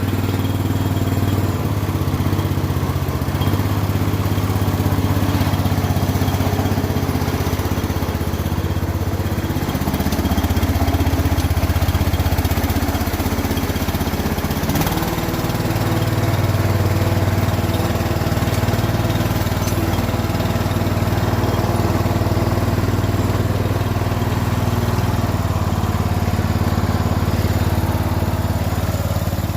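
Toro riding lawn mower's 14 hp Briggs & Stratton engine running steadily just after a cold start, its speed shifting a little around ten and again at about fifteen seconds in.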